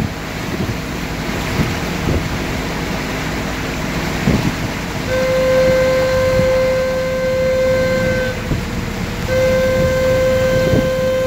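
A boat's horn sounds two long, steady blasts at one pitch. The first starts about halfway through and lasts about three seconds; the second follows about a second later and is still going at the end. Before the horn there is only wind on the microphone and the rumble and water noise of the launch under way.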